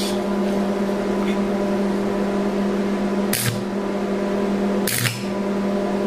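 Tombstone-style AC transformer arc welder humming steadily while switched on, set to about 120 amps. Two short sharp clicks, about three and a half and five seconds in, as the carbon rods in the stinger and ground clamp are handled.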